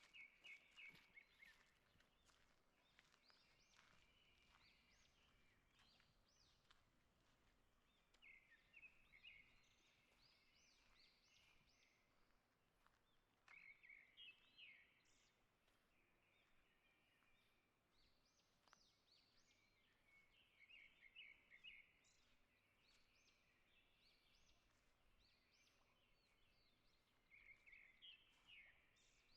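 Faint forest birdsong: a songbird repeats a short, quick song phrase about every six seconds, with scattered fainter chirps between.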